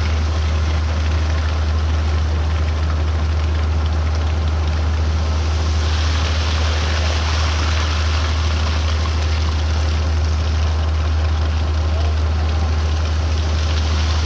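An engine of construction machinery running steadily with a constant low drone, under a continuous rushing noise like wet concrete flowing.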